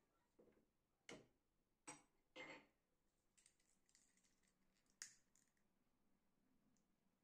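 A few light clicks and knocks of small objects being handled: three close together in the first three seconds, another about five seconds in, with a soft rustle between.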